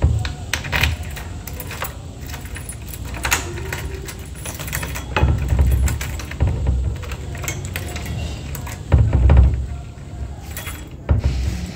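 A bunch of keys jangling, with repeated sharp metallic clicks as a key works the lock on a door's metal latch. A few dull low thumps come in around the middle and again near the end.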